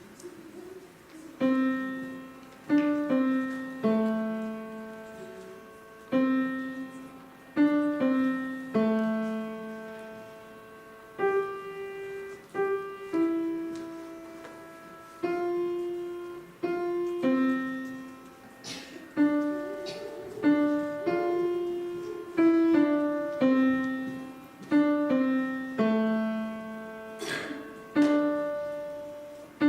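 Solo piano playing a slow melody in single notes and simple chords, each note struck and left to ring and fade, beginning about a second and a half in.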